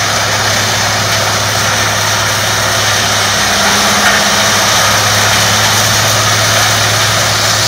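Peterson 5900 woodchipper running steadily: a deep, even engine hum under a loud continuous rushing noise, with a brief knock about four seconds in.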